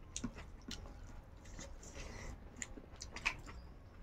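Close-up chewing and mouth smacks of people eating by hand, with a few short soft clicks scattered through.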